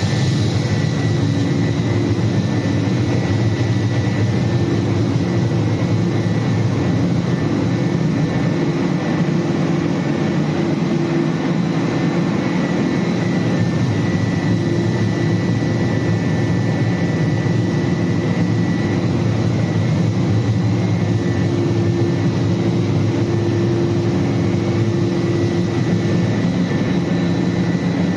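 Biomass-fired steam boiler plant running: a loud, steady roar with a constant hum held through it, no change in pitch or level.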